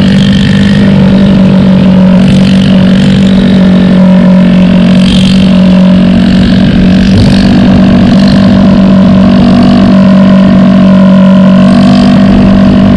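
Honda Dio scooter's single-cylinder four-stroke engine running with its silencer removed: a loud, steady open-exhaust drone held at an even pitch while the scooter is ridden at a constant speed.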